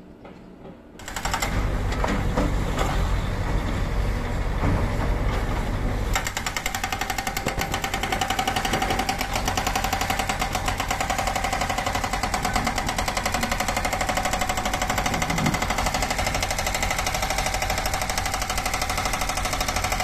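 Hydraulic rock breaker on a Case backhoe loader's arm hammering rock in a fast, continuous rattle, over the machine's diesel engine. It comes in loudly about a second in and settles into an even rapid hammering from about six seconds in.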